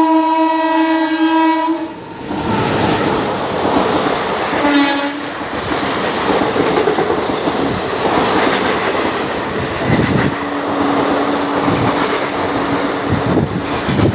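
The Sevagram Express passing at high speed, about 110 km/h. Its locomotive horn sounds one long note for about two seconds, with a short second note about five seconds in. Between and after the horn notes comes a loud steady rush and clatter of coaches passing, and a steady tone sounds for a few seconds near the end.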